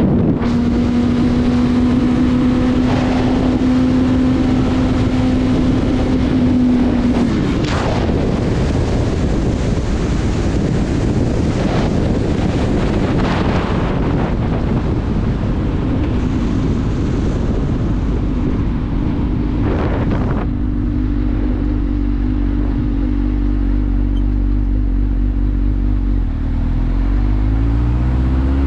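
Motorcycle engine at a steady cruise with wind rushing over the microphone. About seven seconds in the engine note drops as the throttle closes, and the wind noise fades around twenty seconds in as the bike slows. Near the end the engine revs up again as the bike accelerates.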